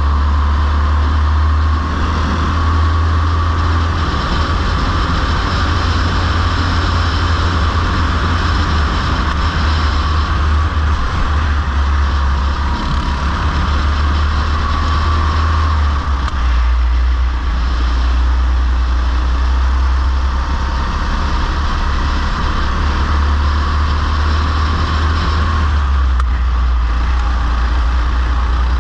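Go-kart engine running under way, heard from on board, its pitch rising and falling with speed through the corners over a heavy steady low rumble.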